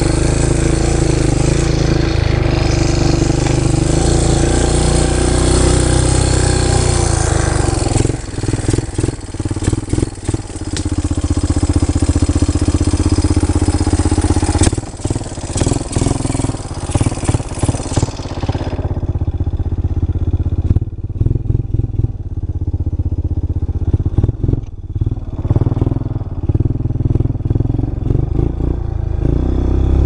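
Engine of a small open off-road vehicle running steadily as it drives over a rough dirt track. After about eight seconds it is broken by many short knocks and clatter from the bumps, and it sounds duller for the last third.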